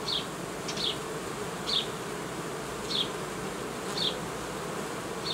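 A colony of honeybees buzzing steadily over an open hive. Short high chirps come through about once a second.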